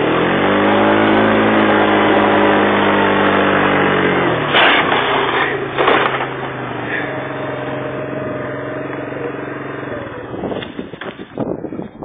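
Small engine running hard at high revs. About four and a half seconds in the revs drop away, and two loud rough bursts of noise follow. It then runs on steadily at lower revs before giving way to irregular rumbling and buffeting near the end.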